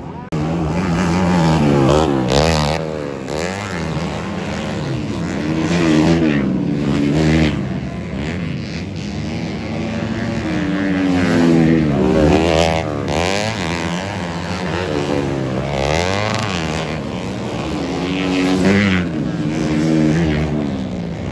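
Several dirt-track racing motorcycle engines revving hard and overlapping, their pitch climbing and dropping again and again.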